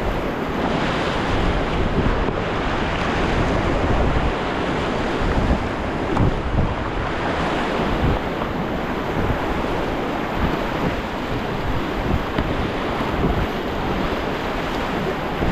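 Rushing river water around a raft, a steady loud wash, with wind buffeting the microphone.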